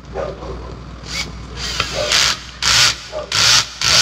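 Cordless drill-driver run in about five short bursts, driving a screw back into a rotary hammer's armature and gear assembly; the later bursts are the loudest.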